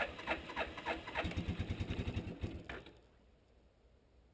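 1988 Suzuki Quadrunner 300's single-cylinder four-stroke engine being cranked by its electric starter on full choke in freezing cold. The even cranking rhythm quickens about a second in as it begins to fire, then stops with a click near three seconds, leaving a short quiet spell.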